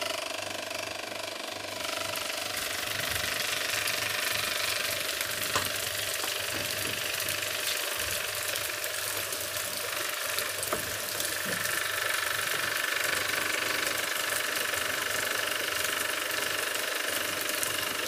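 Homemade water pump driven by a reused washing-machine motor, running with a steady hum and rattle. About two seconds in, water starts gushing from its hose and splashing onto wooden planks, a steady hiss that continues.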